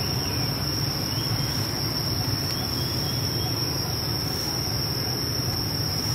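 Insects droning with one steady high-pitched tone, over a low steady rumble; a few faint short chirps come through.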